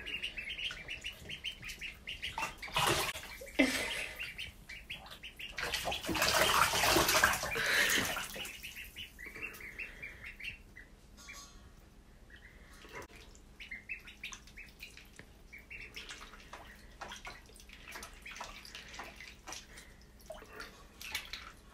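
Ducklings peeping in quick runs of short high calls while they paddle in shallow bathtub water. Water splashes loudly twice, about three seconds in and again from about six to eight seconds, then peeps and small splashes go on more quietly.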